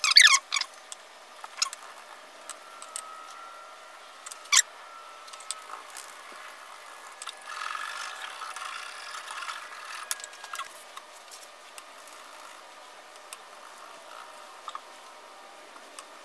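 Quiet work sounds of a wet carbon-fibre layup: a few squeaks of a plastic resin spreader at the very start, a single sharp click about four and a half seconds in, and a soft rolling rasp in the middle as a ribbed metal laminating roller is worked over the resin-soaked cloth, with small scattered ticks.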